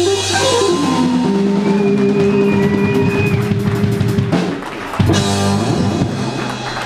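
Live band playing: electric guitar with held and bending notes over bass and drum kit, with a sharp full-band hit about five seconds in and the chord ringing on after it, like the song's final hit.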